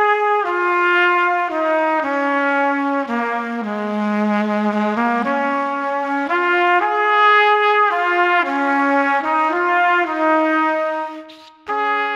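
A single brass instrument playing a slow melody of held notes that steps mostly downward and back up, with a short break near the end before one last held note.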